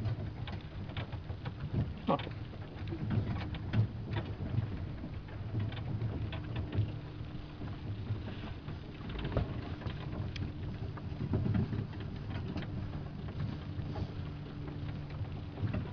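Horse-drawn carriage in motion: a steady low rumble from the wheels, with frequent small rattles and clicks.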